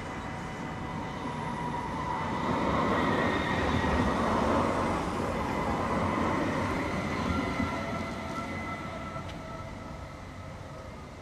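CAF Urbos 100 tram passing by on its rails, a rumble with a steady whine over it, growing louder to a peak about four seconds in and then fading as it moves away.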